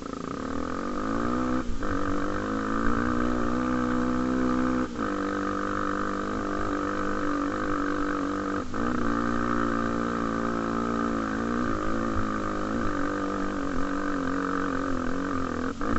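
Honda XR250 Tornado's single-cylinder four-stroke engine running steadily under way. The engine note drops out briefly a few times, about 2, 5, 9 and 16 seconds in.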